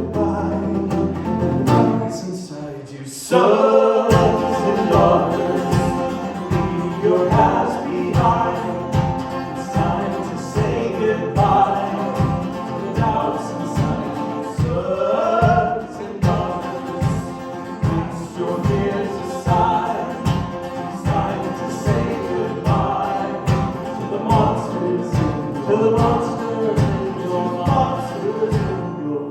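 Live band music with voices singing together over held chords; about three seconds in a steady kick-drum beat comes in, about one and a half beats a second, and runs on under the singing.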